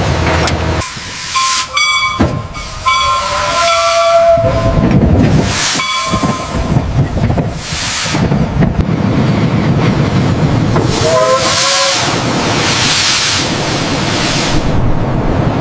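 Steam hissing loudly in gusts, with several short whistle-like tones breaking in over it, the last one wavering in pitch.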